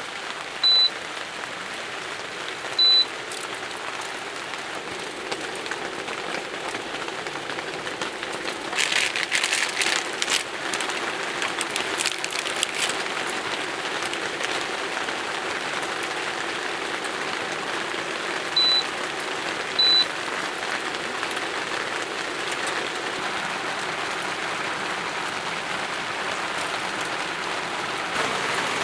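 Steady rain falling, with a spell of denser, crisper pattering about nine to eleven seconds in. Four short, high beeps cut through it, two near the start and two about two-thirds of the way through.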